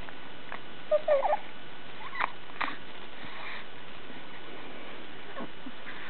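A short, soft coo about a second in, with a bend in pitch, followed by two faint clicks.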